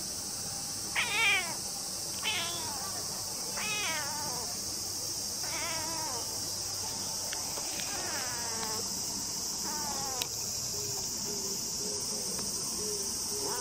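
A stray cat meowing six times in short, mellow calls that fall in pitch, the first the loudest, over a steady high drone of cicadas.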